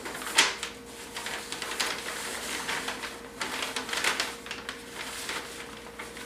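Sheets of pattern paper being folded and pressed down by hand, rustling and crinkling in irregular short bursts, over a faint steady hum.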